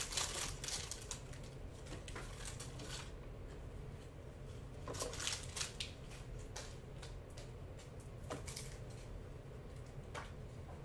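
Faint crinkling of a trading-card pack's foil wrapper being opened, then light clicks and rustles of the cards being handled. There is a cluster of crinkles at the start, another about five seconds in, and single clicks near eight and ten seconds.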